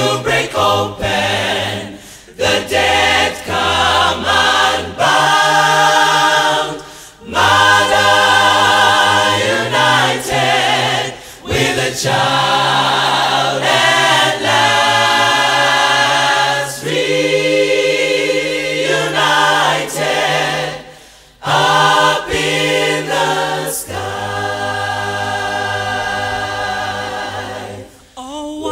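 Mixed gospel choir singing a cappella in close harmony, with a low bass part sustained under the chords. The singing runs in phrases, each broken by a short pause for breath.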